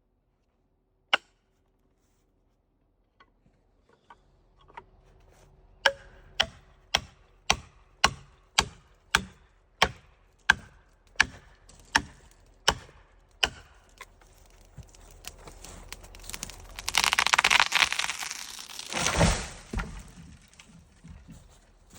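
Felling wedges being driven into the back cut of an ash tree with repeated sharp blows, about two a second, after a single knock. Near the end comes a louder spell of cracking and splitting wood with a deep thump.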